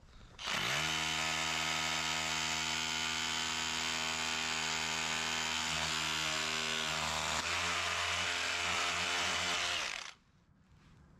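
A power tool's motor spins up, runs steadily for about nine seconds, changes its note about seven seconds in, then stops.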